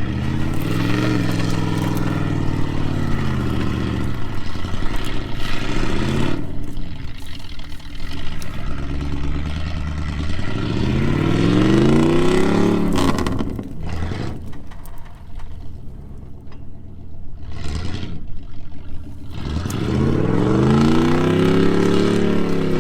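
Truck engine revving in about four surges, each rising and then falling in pitch, with a quieter lull partway through, as the truck tries to pull itself out of soft mud.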